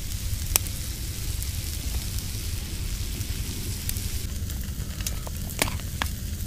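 Steak sizzling in a titanium fry pan over a wood fire, with a steady hiss and a few sharp pops.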